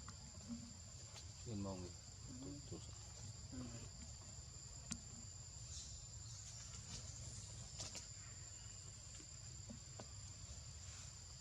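Insects droning in a steady, high-pitched tone, with a brief wavering call about two seconds in and a few faint clicks.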